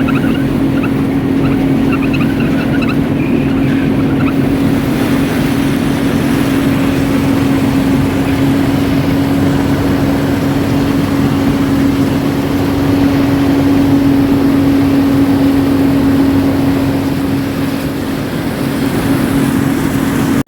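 Combine harvester running steadily while harvesting corn, a loud, even machine drone with a strong low hum. It swells a little past the middle and eases off near the end.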